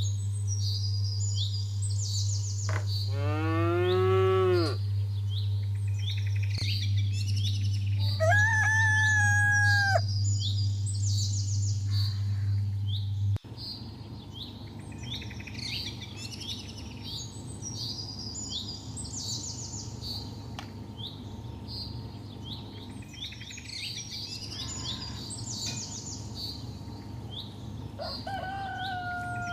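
Farmyard ambience: many small birds chirping continuously, a cow mooing once about three seconds in, and other long animal calls about eight seconds in and near the end. A low steady hum underneath stops abruptly about halfway through.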